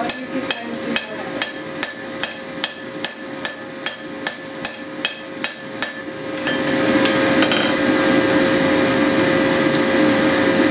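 Hand hammer striking a bar on a blacksmith's anvil in quick, even blows, about three a second. Near the middle the hammering stops and a steady whirring noise takes over.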